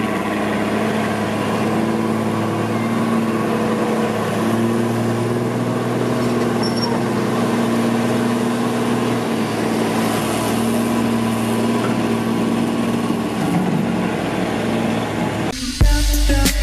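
A heavy 22-wheel dump truck's diesel engine running steadily, its pitch holding level. About a second before the end, music with a strong beat comes in.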